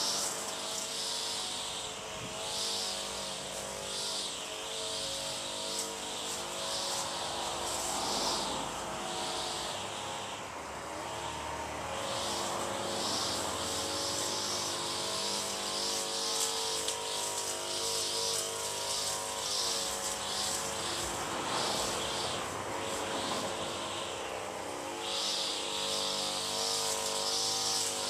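Outdoor ambience dominated by a steady engine drone whose several pitched tones shift slowly up and down. Over it, a high hiss swells and fades about every one and a half seconds.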